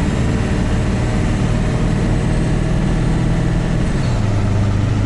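Ford 7.3 Powerstroke turbo-diesel V8 running loud under light throttle, heard from inside the cab of the loaded pickup while the engine is still warming up. Its note drops slightly about four seconds in.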